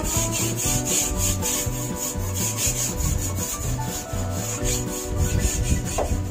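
A hand brush scrubbing back and forth on the rusty sheet metal of a car body's cowl, in quick even strokes about four or five a second.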